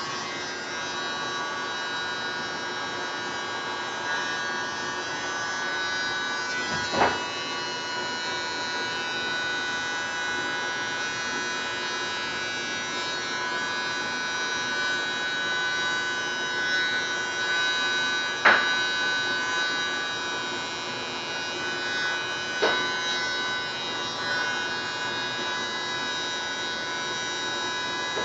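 A small electric motor running steadily with an even whine, broken by three short clicks or knocks.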